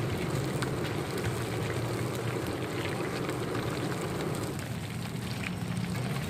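Chicken pieces deep-frying in a kadai of hot oil: a dense, steady sizzle full of small crackling pops, over a steady low rumble.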